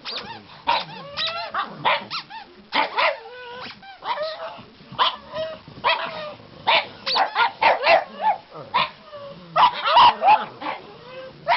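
Pugs barking and yipping in a rapid run of short calls, some rising and falling in pitch like brief howls.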